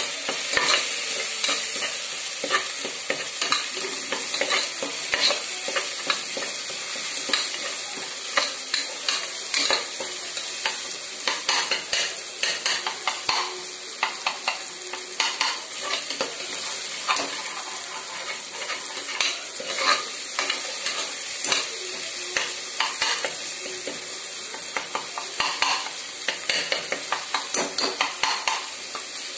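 Chicken and masala sizzling as they fry in a metal pot, with a spoon stirring and scraping against the pot in frequent, irregular strokes.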